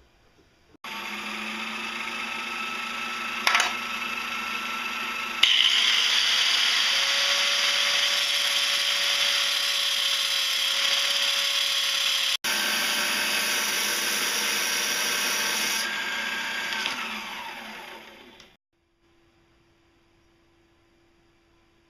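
Angle grinder running against a steel tube that is turning in a small metal lathe, grinding the tube's surface. The grinding grows louder about five seconds in, and the grinder winds down near the end.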